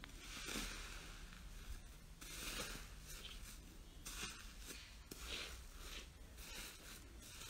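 Metallic foil crinkling and slime squishing as a small plastic racket-shaped tool pokes and scrapes through crumpled gold foil over slime, in a series of short rustles.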